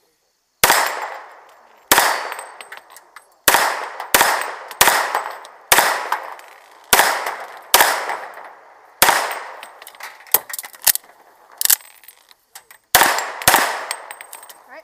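A semi-automatic pistol fired from inside a car, about a dozen loud shots in singles and quick pairs, spaced roughly half a second to a second and a half apart, each trailing off briefly.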